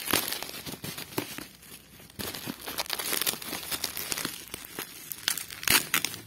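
Plastic bubble wrap and crumpled paper packing crinkling and rustling as a box is rummaged through by hand, with sharper crackles just after the start and again near the end.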